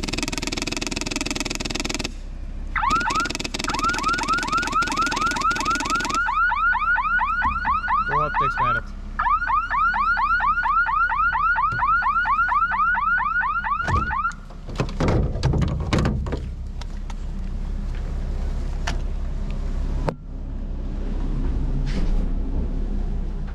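Electronic alarm siren cycling through several tones: first a harsh buzz, then rapid rising chirps, then higher rising sweeps, then a rapid rising whoop. It cuts off about 14 seconds in. A vehicle engine rumbles steadily underneath, with a few loud knocks just after the siren stops.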